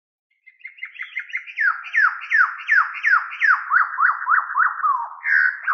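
A run of whistle-like tones from an intro sound effect, each sliding quickly downward and repeating two or three times a second. Near the end they change to short rise-and-fall chirps.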